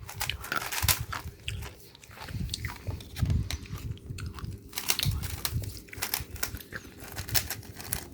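GAN 3x3 speedcube being scrambled by hand, its plastic layers turned in quick irregular clicks and clatter, with low thumps from handling.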